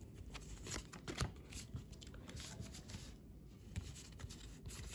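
A stack of Pokémon trading cards being flipped through by hand: cards sliding and flicking against each other in a run of faint, irregular soft clicks and rustles.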